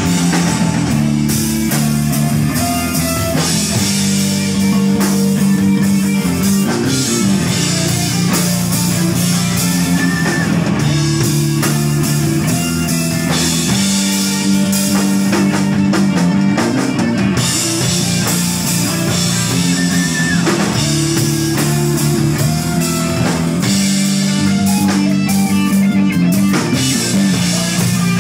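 Live rock band playing loud and steadily: electric guitar, electric bass and a DW drum kit with cymbals.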